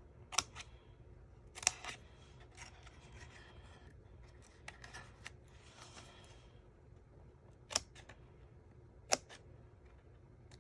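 Small craft scissors snipping through cardstock: a handful of sharp, separate snips spread out with pauses between them.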